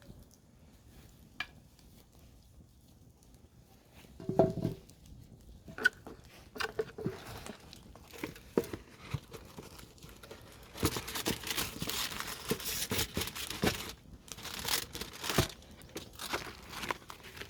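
Campfire crackling, with scattered sharp pops and a denser, louder stretch of crackling and rustling about two-thirds of the way through.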